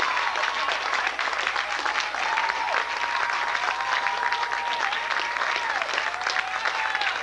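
Audience applauding, a dense, steady patter of many hands clapping. A high held tone rides over it, falling away in pitch every second or two.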